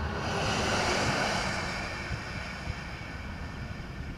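A large truck passing on a wet highway: a rush of tyre hiss and spray swells about half a second in and fades away within a couple of seconds.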